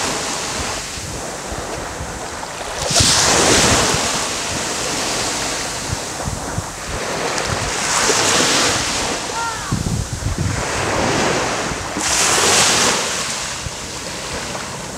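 Small waves breaking and washing up a sandy beach, the surf swelling about every four to five seconds, with wind buffeting the microphone.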